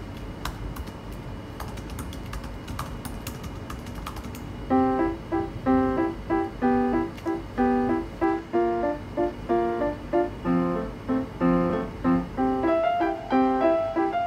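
Irregular clicking of typing on a laptop keyboard for the first few seconds. Then, about five seconds in, louder background music starts: short, repeating piano-like notes several times a second.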